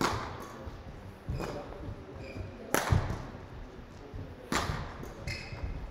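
Badminton rally: rackets striking the shuttlecock, four sharp hits about a second and a half apart, echoing in a sports hall.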